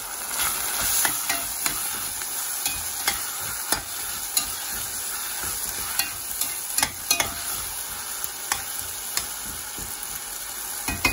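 Sliced onions, ginger, garlic and green chillies sizzling steadily in ghee and oil in a heavy pot while a slotted spatula stirs them, with frequent sharp clicks and scrapes of the spatula against the pot.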